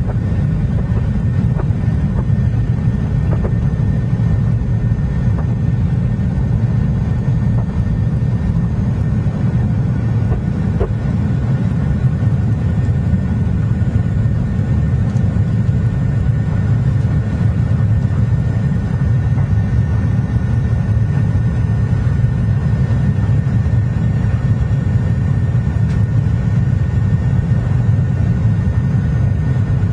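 Cabin noise of a Boeing 737-800 at takeoff thrust, heard from a window seat over the wing: its CFM56-7B turbofans give a steady, loud low rumble with a faint high whine on top. This runs through the takeoff run, lift-off and initial climb.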